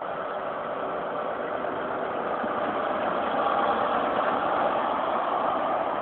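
HST Class 43 power car's diesel engine running under power as the train pulls past close by, growing louder as the power car goes by.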